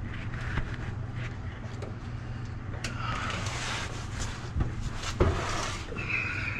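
Metal-on-metal work on a rusty truck frame: scattered knocks and clicks, a rough scraping stretch in the second half with two sharper knocks, over a steady low hum.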